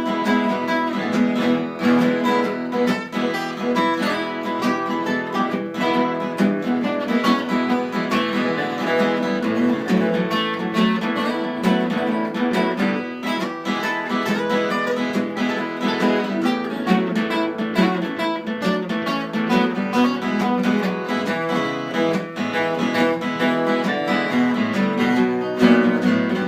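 Acoustic guitar playing an instrumental break in a country song, without vocals.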